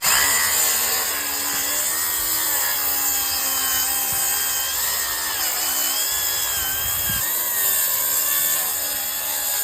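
Milwaukee track saw starting up abruptly and cutting lengthwise through a wooden deck board. It is a steady, loud motor-and-blade whine whose pitch wavers slightly as the blade works through the wood.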